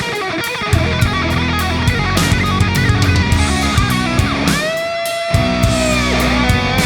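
Heavy metal backing music with distorted electric guitar and drums; about four and a half seconds in, the bass and drums drop out briefly under a single bent guitar note before the full band returns.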